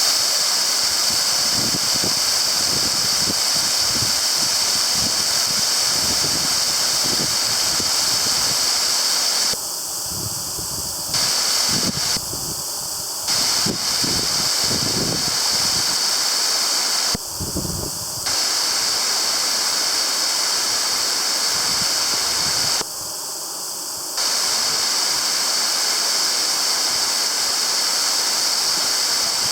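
A partly iced-over waterfall rushing: a steady, loud hiss of falling water with irregular low rumbles underneath. The level drops abruptly for a second or so four times, at cuts in the recording.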